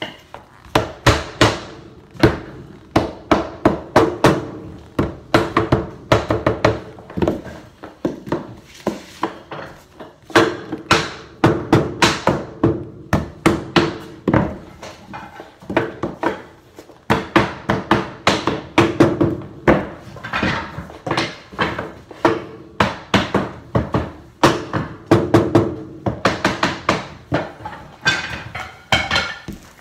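Mallet knocking hardwood floorboards tight against one another as they are laid, many rapid knocks in runs with short pauses between them.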